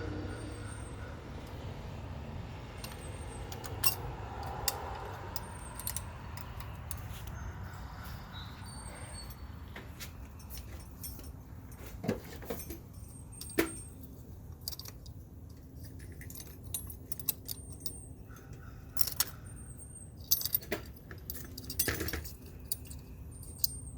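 Scattered metallic clicks and light rattles of hardware and hand tools being handled, thickest in the second half, over a steady low background rumble.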